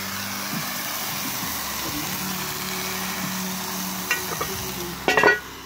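Steady sizzling hiss from the cast iron Dutch oven of stuffed peppers cooking over the fire. About five seconds in comes a sharp metallic clank with a short ring as the metal lid lifter meets the cast iron lid.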